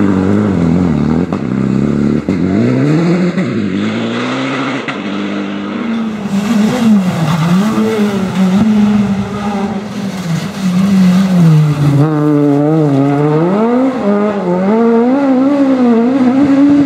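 Rally car engines revving hard through the gears, their pitch climbing and dropping again and again, as a Citroën DS3 pulls out of a corner and a Škoda Fabia passes.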